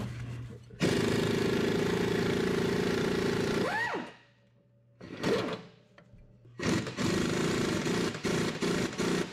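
A pneumatic air tool hammering on a seized torque rod bolt of a truck suspension. It comes in two runs of about three seconds each, with a brief burst between them. The second run is choppier, in short pulses.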